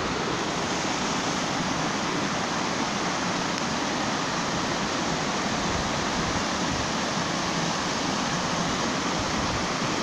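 Muddy floodwater rushing in a torrent over stones and debris, a steady, unbroken rushing noise.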